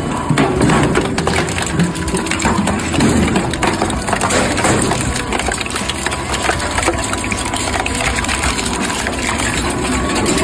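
Twin-shaft industrial shredder tearing up a steel oil drum: dense, irregular crunching and cracking of sheet metal between the cutters over the steady drone of the machine. Near the end the drum is through and the shredder runs empty.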